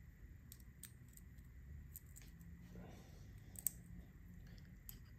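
Faint small metallic clicks as a stainless steel screw, washers and nut are fitted together through a small electric motor's end bell, with one sharper click about three and a half seconds in, over faint room tone.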